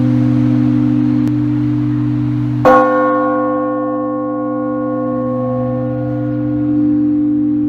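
Russian Orthodox church bells ringing the Easter peal. The deep hum of a large bell carries on throughout, and a bell is struck sharply about two and a half seconds in; its bright overtones ring out and slowly fade.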